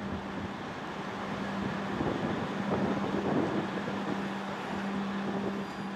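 Steady hum of the coal-fired steamship SS Badger's machinery, heard from its deck while the ship is under way, with wind noise on the microphone that swells around the middle.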